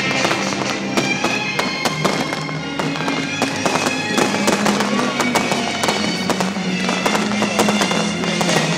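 Fireworks crackling and popping in rapid, dense bursts, with music playing under them on a steadily held low note.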